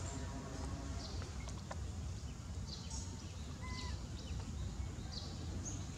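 Outdoor ambience with a steady low rumble and scattered short, high-pitched animal chirps. A brief flat two-note squeak comes a little before four seconds in.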